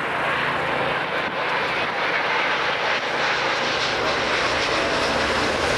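Airbus A380's four turbofan engines passing low overhead: a loud, steady jet rush with no break.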